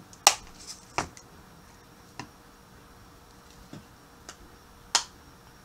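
Plastic spice jar and its cap being handled: about six sharp, irregular clicks and taps, the loudest near the start and about five seconds in.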